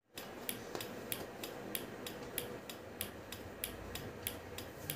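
Small 5 V relay clicking steadily as its contacts switch on and off over and over, about three sharp clicks a second.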